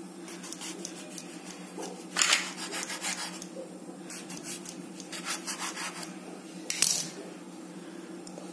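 Kitchen knife sawing through stacked slices of white bread on a wooden chopping board, in several bursts of quick back-and-forth strokes, loudest about two seconds in and again near seven seconds, over a steady low hum.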